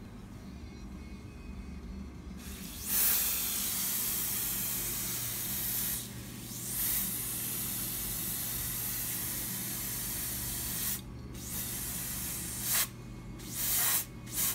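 Aerosol spray can hissing as it is sprayed onto gearbox parts, starting a couple of seconds in with two long sprays of several seconds each, then a few short squirts near the end. A steady low hum sits underneath.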